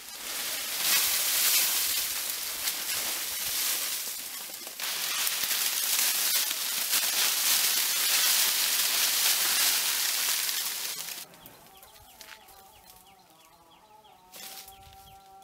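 Dry teak leaves pouring out of a woven basket onto the ground: a loud, dry rustling for about eleven seconds, with a brief dip about five seconds in. Once the pouring stops, chickens cluck, ending with one longer, steady call.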